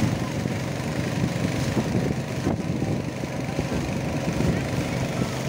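Motor of a small river boat running steadily while the boat is under way, a low even hum.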